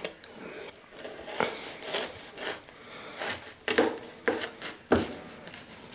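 Kitchen knife cutting through a stacked bread-roll burger, with scattered knocks and scrapes.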